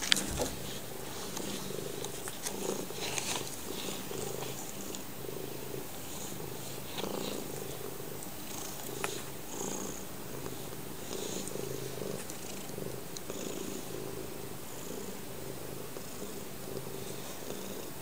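Calico cat purring while being stroked, a steady low purr that pulses with each breath. A few rustles of handling sound near the start.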